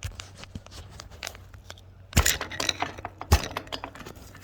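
Metal clinks and scrapes of a motorcycle's front axle being worked out through the fork and wheel hub while the wheel is held up, with two sharp knocks about two and three seconds in.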